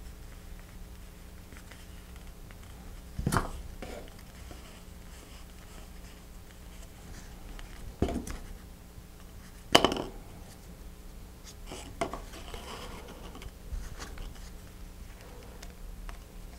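Handling noise at a workbench: soft rustles and a few sharp knocks, the loudest about ten seconds in, as cardboard rocket tubes, a paper centering ring and a glue bottle are picked up and set down on a cutting mat, over a faint steady hum.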